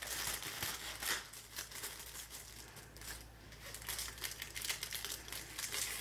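Thin clear plastic wrapping crinkling on and off as hands unwrap a rolled diamond-painting canvas.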